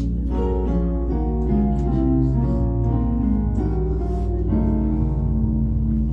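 Slow instrumental music: a melody of changing notes over a steady low held tone, settling into a held chord about four and a half seconds in.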